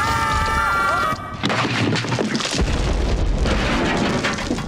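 Sound effect of a mine caving in: a heavy rumbling crash of falling rock that starts about a second and a half in, with scattered cracks and thuds. It is preceded by wavering tones that cut off just before it.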